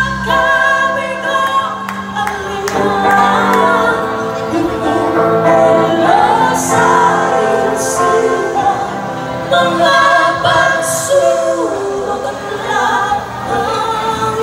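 Live pop-rock band playing: three female vocalists singing together over electric guitar, bass guitar and drums.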